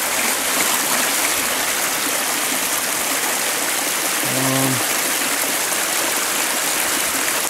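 Water rushing and gurgling as it runs through a gap in the ice along a snowy bank, loud and steady throughout.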